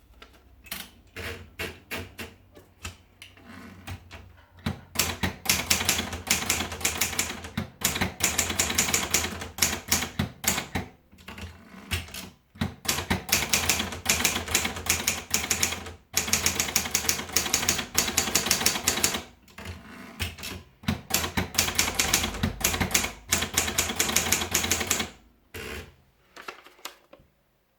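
Esselte 50M typewriter being typed on: fast runs of key strikes broken by short pauses. The typing is lighter for the first few seconds, then louder and denser, and it stops shortly before the end.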